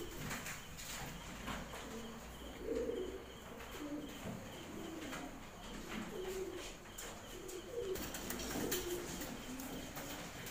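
Domestic fancy pigeons cooing again and again in low, rolling phrases, with scattered light clicks.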